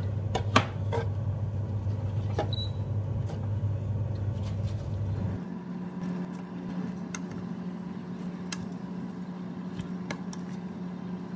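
Induction hob humming steadily under a frying pan. About halfway through the hum changes to a higher, quieter tone. A spatula knocks and scrapes in the pan as vegetables are stirred, with the loudest knock about half a second in.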